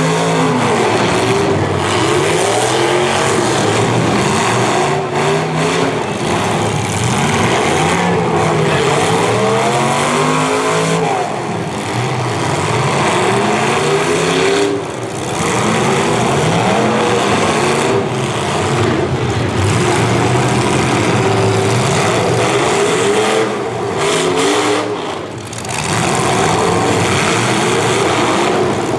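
Several demolition derby cars' V8 engines revving hard at the same time, their pitches rising and falling against one another, with brief lulls about halfway through and again near the end.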